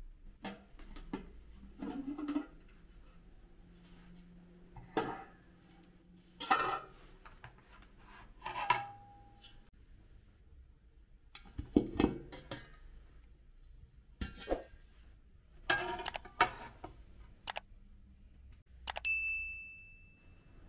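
Dishes and cookware being handled: scattered clinks and knocks as a plate, an aluminium pot and clay pots are moved and set down. Near the end a single bright ding rings for about a second and a half.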